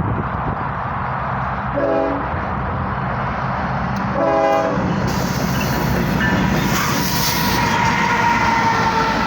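Diesel locomotive air horn on a GE ES44DC freight engine: a short blast about two seconds in and a longer one about four seconds in, over the steady rumble of the approaching train. After the second blast the train noise grows louder, with wheels clattering on the rails and a steady high whine.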